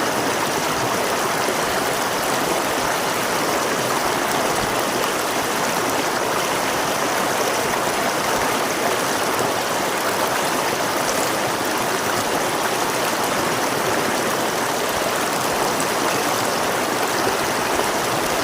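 River water flowing over rocks: a steady rushing and babbling that stays even, with no breaks.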